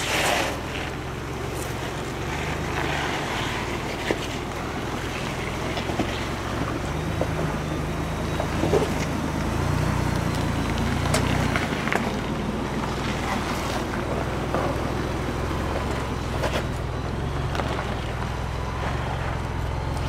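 2021 Ford Bronco's 2.7L twin-turbo EcoBoost V6 running at a low crawl as the truck climbs over boulders, a steady low rumble that swells briefly about halfway through. Short clicks and crunches of the tyres on rock are scattered throughout.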